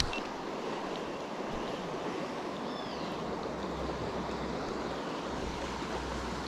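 River water rushing steadily over a rapid. A low rumble joins about halfway.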